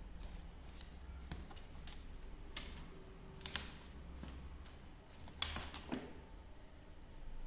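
A few scattered light clicks and taps over a low background, the two loudest about three and a half and five and a half seconds in.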